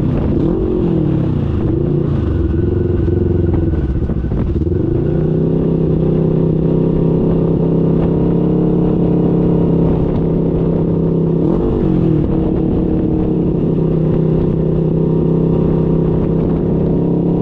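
Side-by-side UTV engine running, heard from inside the open cab. Its revs rise and fall for the first few seconds, then hold steady under throttle, with a short dip and recovery about twelve seconds in.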